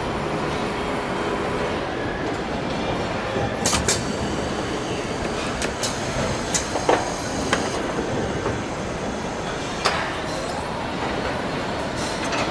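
Steady workshop background noise with several sharp metallic clicks and clinks scattered through it, from hand tools and fittings being worked on a helicopter's main rotor hub.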